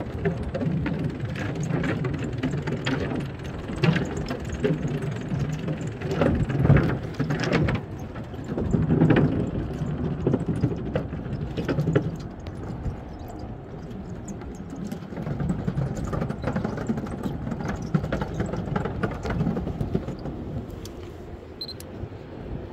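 Wheels rumbling over wooden dock planks, with irregular knocks and clatter from the boards and a low steady rumble throughout.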